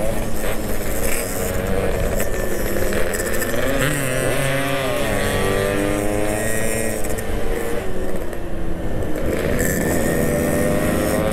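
Yamaha RX-King two-stroke motorcycle engine running on the move, its pitch rising and falling as the throttle opens and closes, with wind noise over the microphone.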